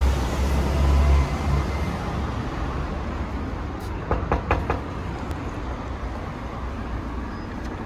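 Knuckles rapping about four times in quick succession on a glass shop door, a little after four seconds in. A steady low street rumble runs underneath.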